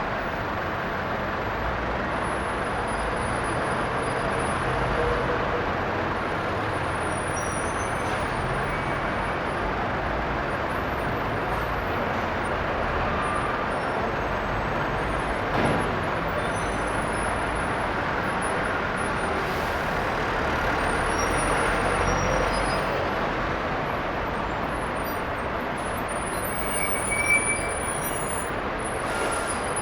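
Busy bus station ambience: a continuous wash of bus and traffic engine noise with low rumble and a couple of slow engine pitch glides. A short knock comes about halfway through and a brief louder sound near the end.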